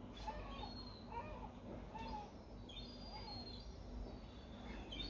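Gulls calling in repeated short, arched cries, with small birds chirping higher up and a faint steady hum underneath.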